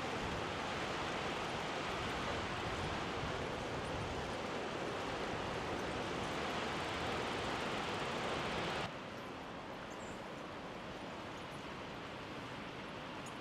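Steady rushing noise of riding a bicycle, wind and rolling on the trail, which drops suddenly to a quieter hiss about nine seconds in.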